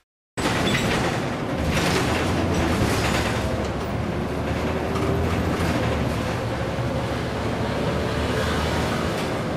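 Cabin noise inside a moving city bus: a steady low engine hum with road and body rumble. It cuts in after a brief gap at the start.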